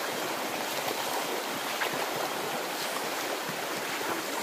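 Shallow river flowing steadily over a rippled, stony bed: an even wash of running water.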